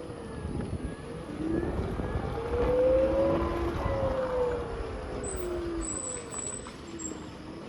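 JCB 3DX backhoe loader's diesel engine working under load over a low rumble, its pitch rising and falling as it revs up and down, loudest about three seconds in.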